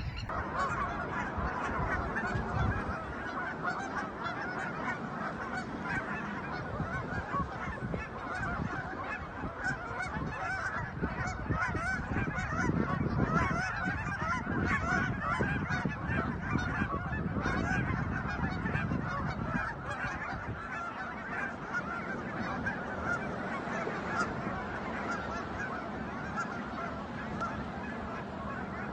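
A flock of wild geese honking continuously, many calls overlapping at once.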